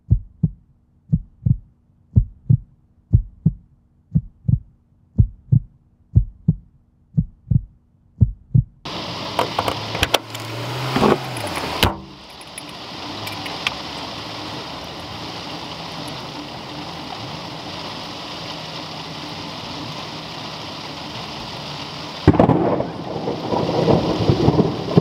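Heartbeat, paired low thumps about once a second, for the first nine seconds or so. Then rain starts suddenly with thunder, steady rain follows, and a second clap of thunder comes near the end.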